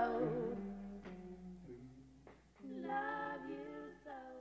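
Soft singing by a woman's voice at the close of a song, almost unaccompanied. A sung note fades away, a low note is held underneath, and a last quiet phrase starts about two and a half seconds in and dies away near the end.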